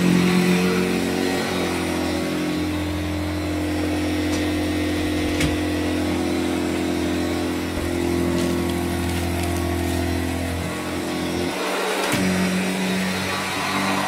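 Hoover Junior 119 upright vacuum cleaner running steadily while pushed over carpet. Its motor hum shifts in pitch a few times, with a short dip about two seconds before the end.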